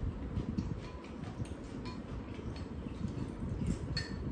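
Metal spoons and chopsticks clicking and scraping against ceramic bowls during a meal, with a sharper ringing clink about four seconds in.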